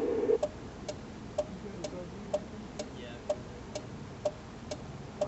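The tail of a police radio transmission cuts off just after the start. Then a steady, even ticking follows at about two ticks a second.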